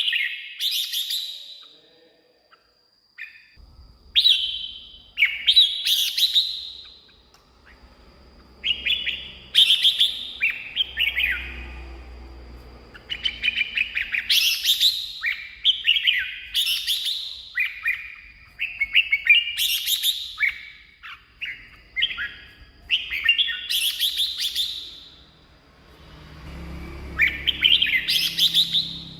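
Red-whiskered bulbul singing: short whistled song phrases, each a second or two long, repeated one after another with brief pauses between.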